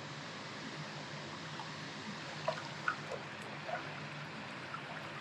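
Steady rush of flowing river water, with a few small plops and trickles of water about halfway through.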